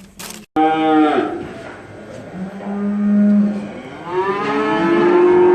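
Cattle bawling: three long calls one after another, the first breaking off, the second held at a steady pitch, the third rising and held.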